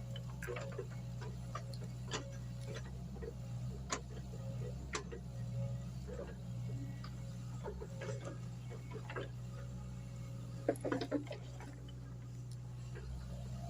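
Mini excavator's engine running with a steady low drone, overlaid by irregular sharp clicks and knocks, with a short cluster of louder knocks near the end.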